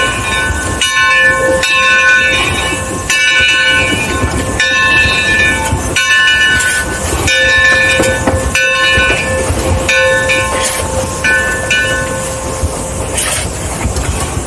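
The bell of a Mason Bogie 0-6-4T steam locomotive ringing in a steady rhythm, a little over once a second, and stopping about twelve seconds in. Under it runs the running locomotive's steam exhaust and wheel noise.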